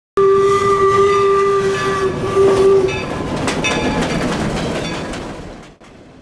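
Steam whistle of a 4-4-0 steam locomotive, No. 17, sounding a long blast and then a short one. After that comes the rumble and clicking of the locomotive and its wooden coaches passing on the rails, which fades away near the end.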